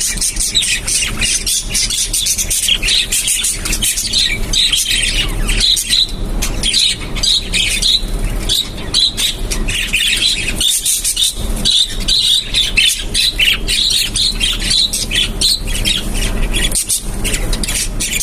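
Budgerigars chattering in a flock, a dense unbroken stream of quick high chirps and squawks.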